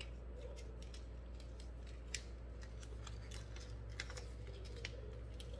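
Plastic film wrapper of a frank sausage being picked at and pulled with the fingers: faint, scattered crinkles and small clicks as the stubborn tear-open strip refuses to tear.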